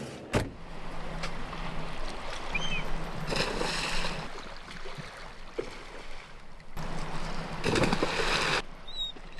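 Sea waves washing onto the beach, swelling twice: once about three seconds in and again about seven seconds in.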